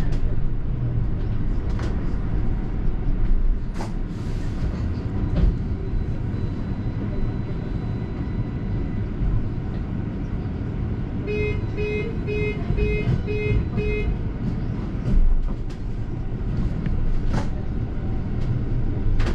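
Steady low rumble of a London double-decker bus's engine and road noise, heard from aboard, with scattered brief knocks and rattles. About two-thirds of the way through, six short evenly spaced electronic beeps sound, about two a second.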